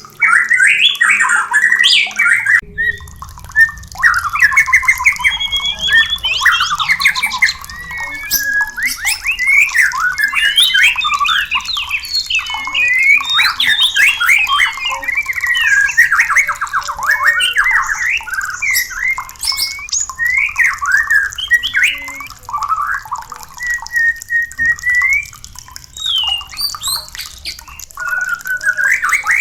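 White-rumped shama (murai batu) singing in full voice: a dense, almost unbroken run of fast, varied whistled phrases that sweep up and down in pitch, with a short break a couple of seconds in.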